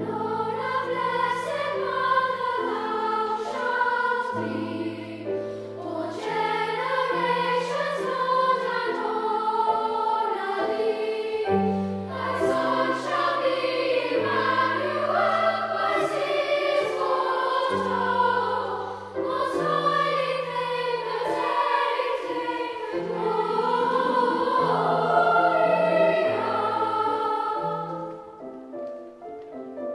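Children's choir singing a Christmas carol, with keyboard accompaniment holding low notes beneath. The music quietens near the end.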